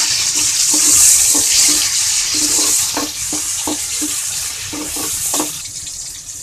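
Chopped tomatoes sizzling in hot oil with fried onions in a metal kadai, the sizzle slowly dying down, while a metal spoon stirs and clinks against the pan in short irregular knocks.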